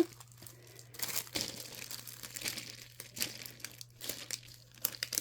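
Crinkly wrapping being handled, in irregular rustles and crackles.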